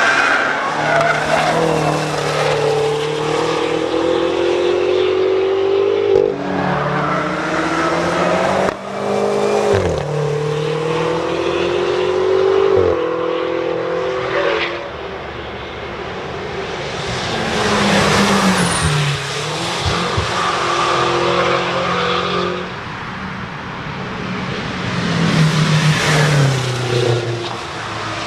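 BMW X5 M prototype's twin-turbo V8 accelerating hard through the gears: the engine note climbs and drops sharply at each upshift, growing louder as the car approaches and fading as it drives away, over several passes.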